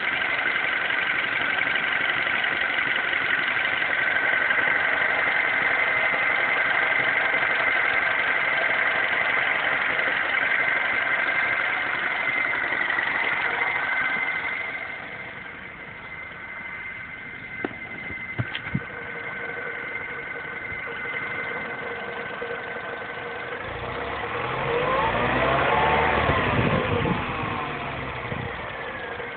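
MINI Cooper S engine idling with a steady high-pitched whine over the engine note, a weird whine at idle on a nearly new car, cause unknown. About halfway through the sound drops in level, with a few sharp clicks shortly after. Near the end the engine sound swells once, rising and then falling in pitch.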